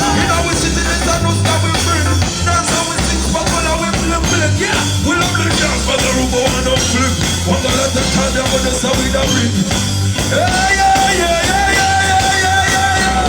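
Loud music with a singer holding long notes over a steady, pulsing bass beat.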